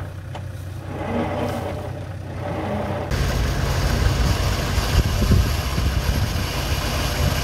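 4x4 engine idling with a steady low hum. About three seconds in, the sound turns abruptly louder and rougher: an engine rumbling under a rushing noise.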